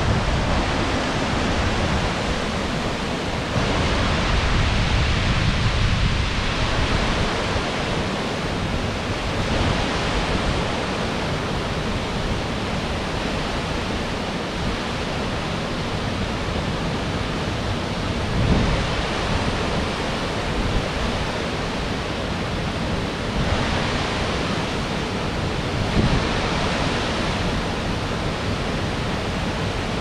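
The Ézaro waterfall on the Xallas river, a 40 m drop over granite into a pool, rushing steadily.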